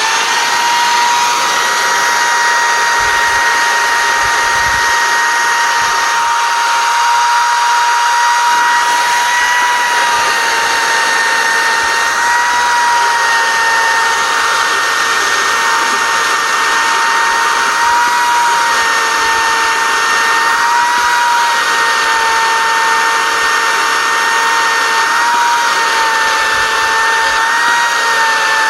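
Electric drill running steadily at high speed, spinning a valve against its seat with lapping paste to lap the valve seat of a Caterpillar C15 cylinder head. The whine starts abruptly and wavers slightly in pitch as the load on the valve changes.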